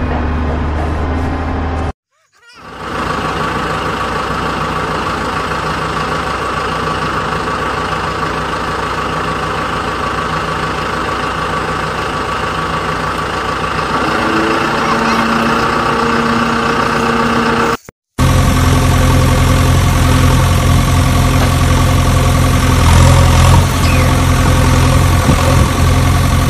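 Engine sound effect laid over the footage, running steadily. It comes in three pieces split by two sudden dead-silent cuts, about two seconds in and again near eighteen seconds; the last piece is a deeper, heavier engine.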